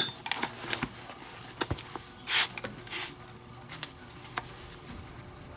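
Leather lace being drawn through the lacing holes of a baseball glove's web: a few short scraping pulls, the loudest just after the start and about two and a half seconds in, with small clicks and taps of handling between them.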